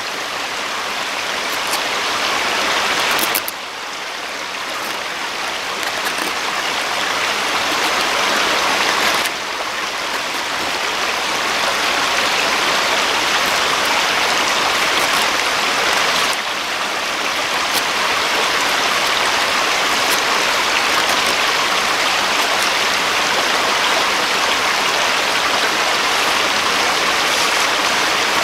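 Steady rushing of running water, like a nearby stream, with a few sudden shifts in level.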